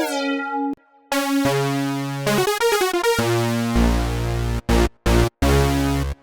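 UVI Synth Anthology 5 synthesizer lead presets playing short melodic phrases: a held note, a quick run of notes about two and a half seconds in, then a brighter, buzzier lead over a deep bass layer, cut into short stabs near the end.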